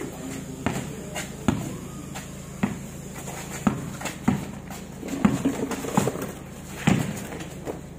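Basketball dribbled on a concrete court: about eight bounces at uneven intervals, roughly one a second.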